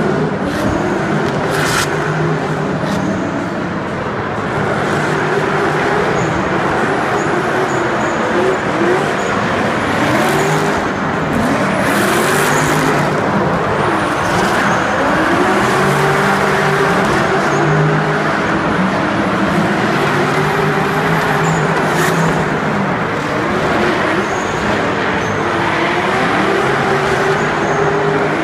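Two drift cars in tandem, engines revving up and falling back again and again through the corners, over a constant hiss of tyres sliding.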